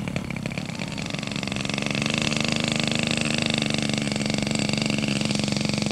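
Small engine of a radio-controlled scale model aircraft running at low throttle while the model taxis on the runway. It gets a little louder about two seconds in, then holds steady.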